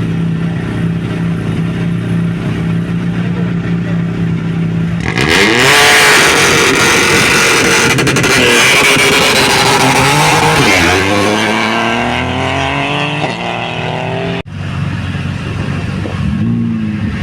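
Rally car idling at the start line, then launching hard about five seconds in: the engine revs up with a loud rush of noise and climbs through a couple of gear changes, fading as the car pulls away. After a sudden cut near the end, another engine idles.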